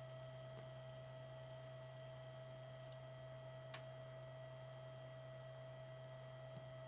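Faint steady electrical hum with a high steady tone from an idle pachislot machine between games. A single light click comes a little under four seconds in.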